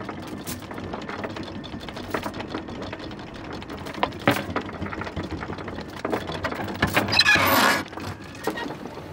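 Anchor windlass hauling the anchor chain aboard, a steady mechanical run with the links clattering and knocking, and a louder rushing burst about seven seconds in.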